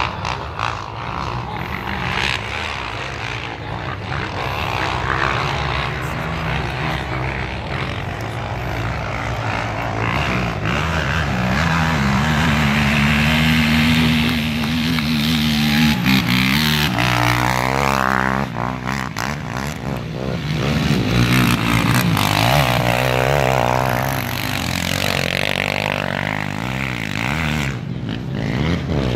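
Quad ATV engines revving hard under load as the machines climb a steep dirt hill-climb track. Partway through the pitch holds high and steady, then swings up and down twice as the riders work the throttle.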